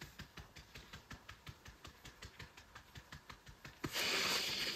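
Rapid, even fingertip tapping on the body in EFT (emotional freedom technique). Near the end a louder breath lasting under a second.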